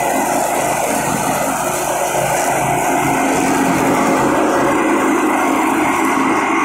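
Riding lawn mower engine running steadily as the mower drives across the grass.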